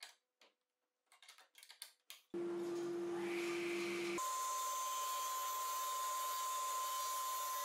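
A few faint scattered metallic clicks as a wrench works the bolts of a steel folding-shelf bracket. About two seconds in, a steady hiss with one held tone starts abruptly, and it shifts suddenly to a higher held tone about four seconds in.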